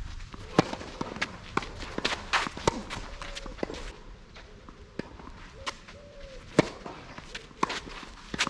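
Tennis ball being struck by rackets and bouncing on the court: a string of sharp knocks at uneven spacing, the loudest about half a second in and again near 6.5 s, with lighter footstep-like ticks between them.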